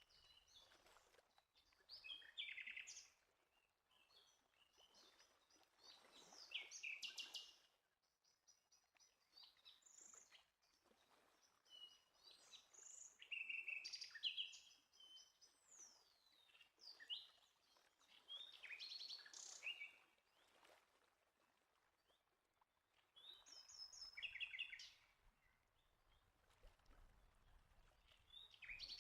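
Faint birdsong: short chirping and trilled phrases from songbirds, coming every few seconds.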